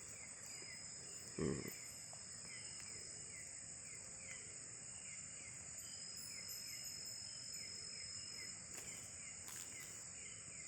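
Night-time forest insect chorus: a steady, high-pitched trilling, with a short falling chirp repeated about twice a second. A single dull thump sounds about one and a half seconds in.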